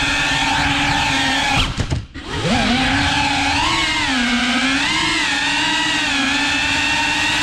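FPV quadcopter's electric motors and propellers whining, the pitch wavering up and down with the throttle. About two seconds in, the motors briefly cut out and then spool back up with a rising whine.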